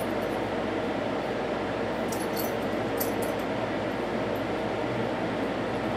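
Steady background noise, a constant hiss with a low hum, with a few faint light ticks about two and three seconds in.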